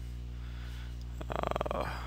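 Steady low electrical hum in the recording, with a short rasping, buzzing sound a little after halfway.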